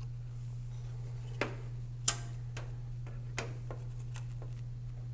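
Scattered light clicks and taps as a graphics card is handled and lined up with a PC motherboard's expansion slot. The sharpest click comes about two seconds in. A steady low hum runs underneath.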